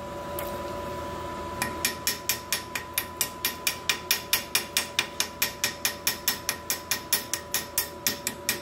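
Wire brush scrubbed back and forth over fresh stick-weld beads on steel, cleaning off slag, in a quick regular rhythm of about four scratchy strokes a second that starts about a second and a half in.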